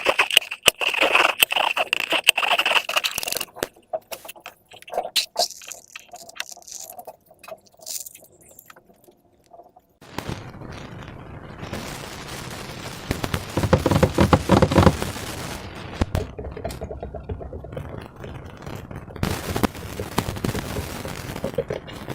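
Slime and rubber balloons being worked by hand. A high squeaky tone with crackling runs for the first few seconds, then scattered sharp clicks, and from about ten seconds a steady rustling noise that grows louder around fifteen seconds.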